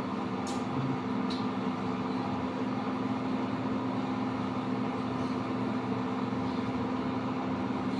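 Steady mechanical room hum with a constant low tone, and two faint clicks about half a second and just over a second in.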